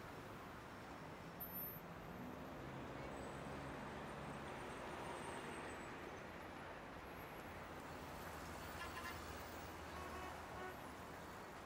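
Faint street background noise with a vehicle engine running low and steady.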